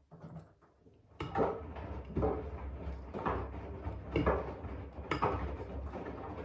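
AEG 7000 Series front-loading washing machine in the main wash: the drum motor starts turning about a second in with a steady low hum, and laundry and water swish and slosh in regular strokes about once a second as the drum rotates.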